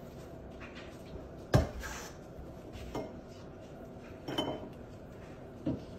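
A capuchin monkey handling a canister on a countertop beside a small bowl: a handful of scattered knocks and clinks, the sharpest about a second and a half in.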